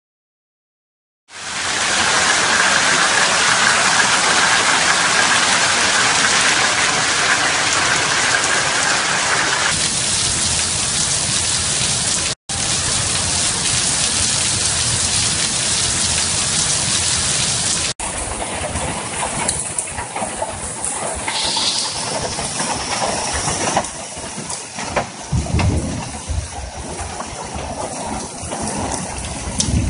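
Hail and rain falling hard, a dense steady hiss, starting about a second in. From about 18 seconds on it is quieter and more uneven.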